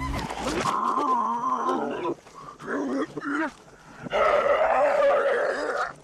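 Straining, animal-like groans from the film's rhino, played backwards: three drawn-out bending calls, the last about two seconds long.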